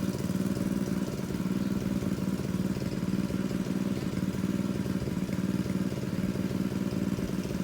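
Small engine running steadily at constant speed, driving a water pump that draws down a fish pond.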